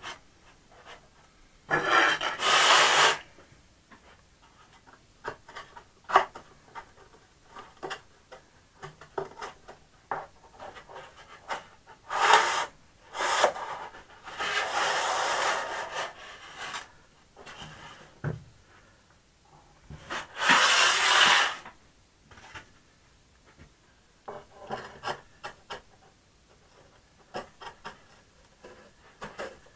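Carbon wing joiner tubes sliding through the sleeves of a foam flying-wing's centre section, the foam parts rubbing and scraping on a wooden workbench. Four louder stretches of rubbing of one to two seconds each, with light knocks and clicks between.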